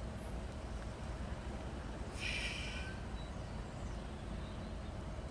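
Class 156 diesel multiple unit standing at the platform with its engine idling, a low steady rumble, and a short hiss about two seconds in.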